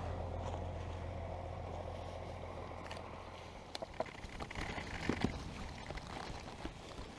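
A vehicle engine's low, steady hum fading away over the first few seconds, then scattered knocks and rustling.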